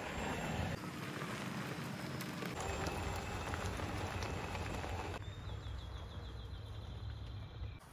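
An E-Z-GO RXV golf cart driving, with a steady low rumble and rustling noise from its tyres on leafy woodland ground. About five seconds in, a bird gives a quick run of repeated high chirps lasting a couple of seconds.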